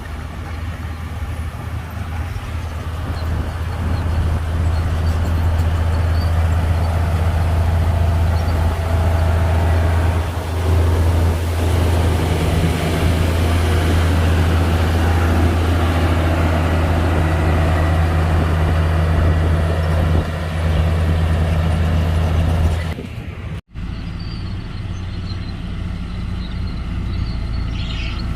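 Heavy diesel construction machine running with a steady low engine drone. The sound breaks off abruptly about 23 seconds in and carries on quieter after that.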